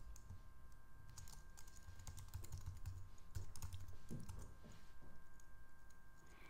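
Typing on a computer keyboard: a quick, uneven run of faint key clicks as an email address is entered, with a faint steady tone underneath.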